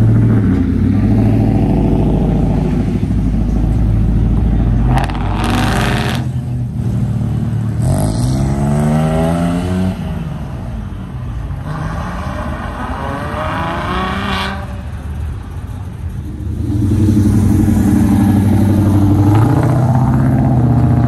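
Car engines idling, with cars revving and accelerating away in the middle, their engine pitch climbing as they pull off. Near the end it settles back to idling.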